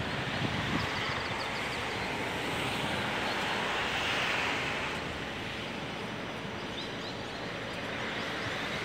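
Distant engine noise from the airport and the road traffic below: a steady rush that swells about four seconds in and then eases off.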